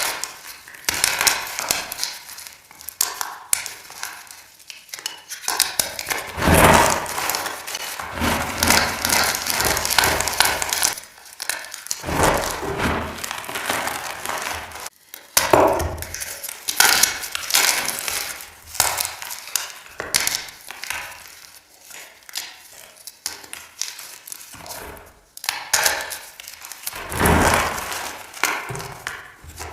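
Pebbles of reformed gym chalk being crushed: an irregular run of crunches and crackles that swell and fade, edited with an added echo effect.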